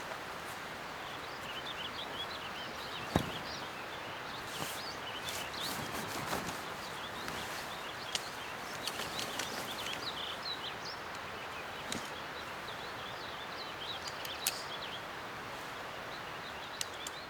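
Steady hiss of rain falling outdoors, with a few sharp drips or taps and small birds chirping faintly throughout.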